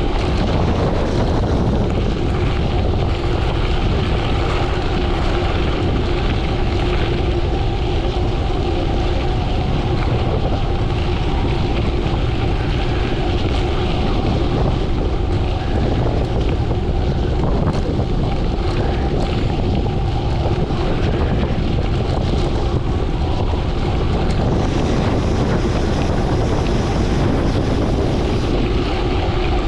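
Wind rushing over the microphone and gravel-bike tyres rolling over gravel on a fast downhill, one steady noise with a faint low hum through it.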